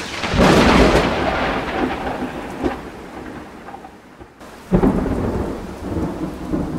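Two rolls of thunder over steady rain: the first swells about half a second in and fades slowly over several seconds, and the second breaks about two-thirds of the way through and fades likewise.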